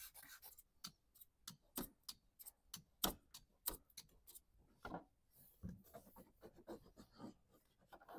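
Faint, irregular clicks and light scraping of a hand tool worked over the inside of a truck windshield's glass, cleaning it before tinting.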